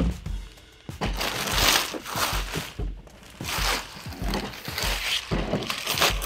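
Thin plastic bag crinkling and rustling as a hard plastic cooler is pulled out of it, with a knock near the end as the cooler is set down on a table.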